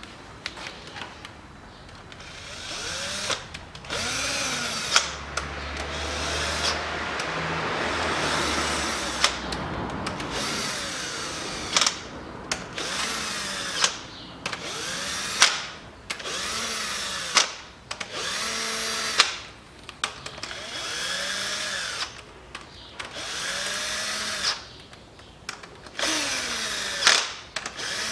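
Cordless screwdriver running down camshaft bearing cap bolts in a series of short runs. Each run speeds up and then slows as the bolt seats, with sharp clicks between some of the runs.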